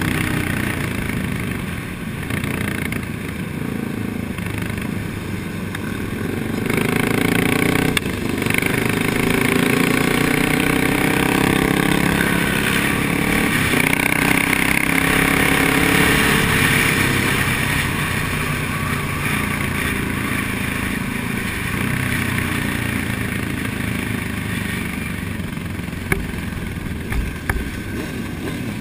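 Motorcycles riding in a large group, sportbikes and dirt bikes, heard from a moving bike: a steady roar of engines and road noise, with engine pitch rising and falling as riders rev in the middle. A few short sharp knocks near the end.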